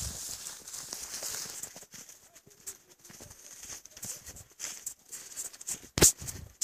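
Footsteps crunching on snow at a quick pace, with handling rustle and a sharp knock near the end.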